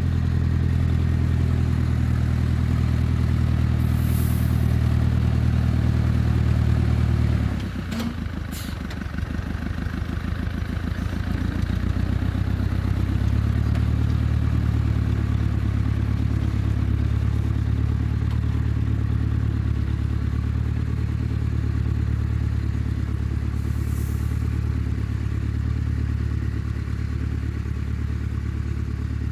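Small farm tractor's engine running steadily under load while pulling a plough through soil. About seven seconds in, the engine eases off as the plough is lifted for the turn at the end of the furrow, with two sharp clanks. It picks back up to full running about five seconds later.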